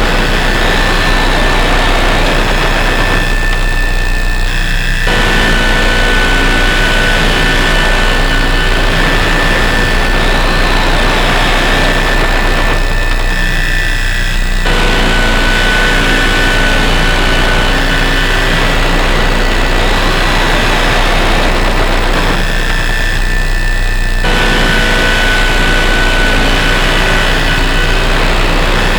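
Harsh noise drone from distorted DIY noise synthesizers run through effects pedals: a loud, dense wall of noise over a steady deep hum, with a few steady high tones on top. A live loop repeats about every ten seconds, the middle of the sound dropping out for about two seconds each time.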